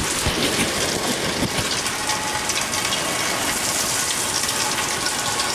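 Heavy thunderstorm rain pouring down, a steady dense hiss of rain.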